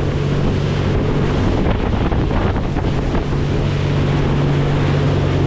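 A boat's engine running steadily under way, with wind buffeting the microphone and water rushing along the hull.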